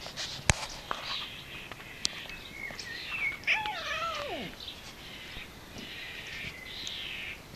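Domestic cat giving one long meow about halfway through, falling steadily in pitch; a sharp click sounds just after the start.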